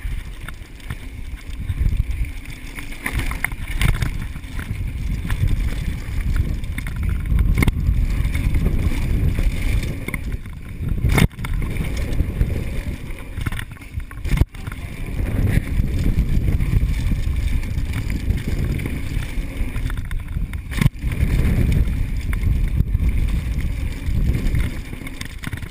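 Wind rumble on an action camera's microphone while a mountain bike rides down a dirt trail, with the tyres running over the dirt. Sharp knocks sound about four times as the bike hits bumps or lands.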